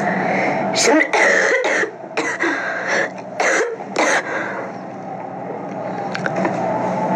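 A woman coughing: a run of short coughs over about three seconds, then it stops, leaving a steady background hum.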